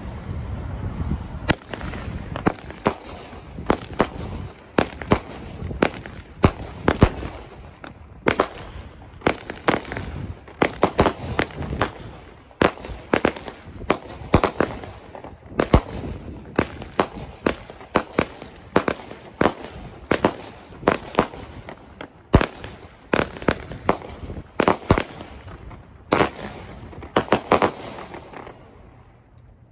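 A 36-shot consumer firework cake firing its shots in quick succession: a series of sharp bangs, about one to two a second, that stops shortly before the end.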